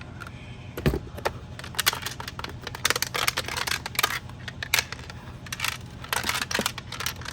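Irregular clicks, knocks and scraping of hard plastic parts being handled and screwed together in a car side-mirror housing.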